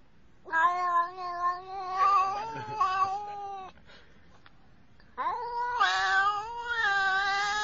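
Domestic cat yowling: two long, loud calls, the second starting about five seconds in.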